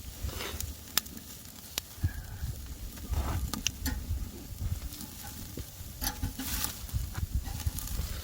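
Meat sizzling on a charcoal grill, with sharp crackles and pops from the burning fire.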